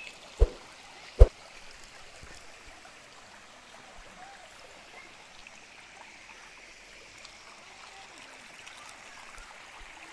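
Shallow creek water running steadily over rocks. Two sharp clicks come about half a second and just over a second in.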